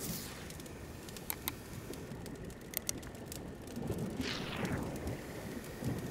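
A knife slicing through a seared beef steak on a wooden cutting board, with one drawn cutting stroke about four seconds in. Behind it comes the scattered crackle and pop of a wood fire.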